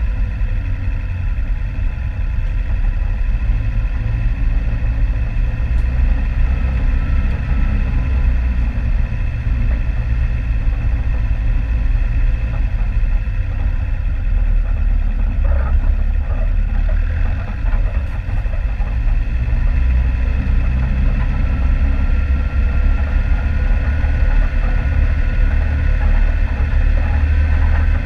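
Vehicle engine running steadily with a strong low rumble, off-road on a dirt track. A faint thin whine slowly rises in pitch over the last several seconds.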